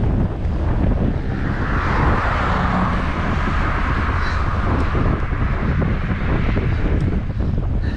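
Wind buffeting the microphone of a camera on a moving road bike, a steady heavy rumble. A car passes in the middle of it, its tyre noise swelling to a peak about two to three seconds in and then fading.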